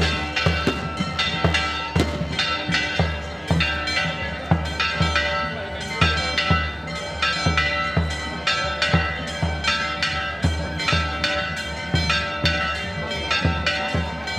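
Bells ringing a rapid, continuous peal: a steady run of strikes, each leaving its ring to overlap the next.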